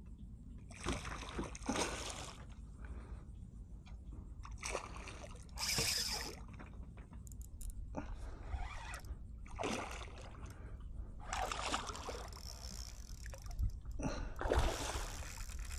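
Water splashing and sloshing in several irregular bursts as a hooked fish thrashes at the surface beside a kayak.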